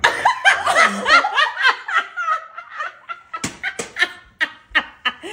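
Women laughing hard, with quick high rising-and-falling bursts of laughter. A few sharp knocks come in past the middle.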